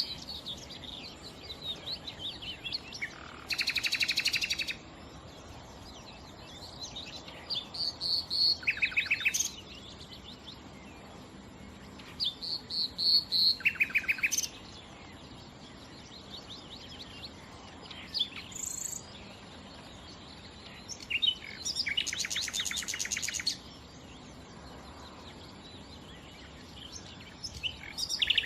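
Nightingale singing: separate phrases every few seconds, each a fast run of repeated notes and rattling trills, with short pauses between phrases.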